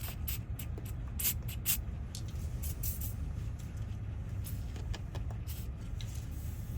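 A lock pick poking and scraping at the wafers inside a corroded car door lock cylinder, a few light scattered clicks with a sharp knock at the end, over a steady low hum.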